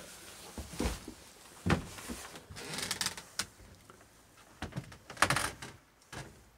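Handling noise from a camera carried around a small boat cabin: irregular knocks, clicks and rustles, with a loud cluster about five seconds in.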